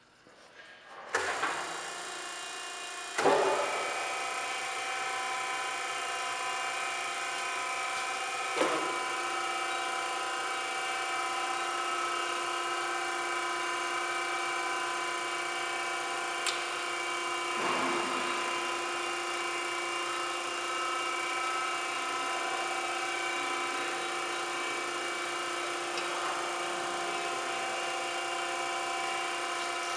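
Norton hydraulic surface grinder being switched on, with two start-ups about one and three seconds in. It then runs steadily, its motors and hydraulic pump making a hum of several held tones, with an occasional knock as the table traverses.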